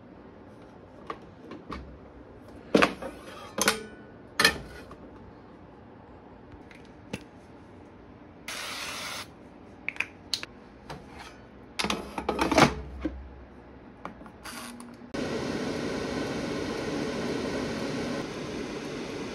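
Compact electric air fryer being handled, with a series of knocks, clicks and a short scrape as its basket is pulled out and pushed back. About fifteen seconds in, its fan switches on suddenly and runs with a steady whir.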